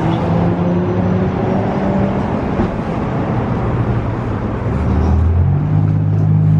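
Nissan 350Z engine running, a steady low drone with a haze of road or wind noise; its note shifts lower about five seconds in, then settles into a new steady pitch.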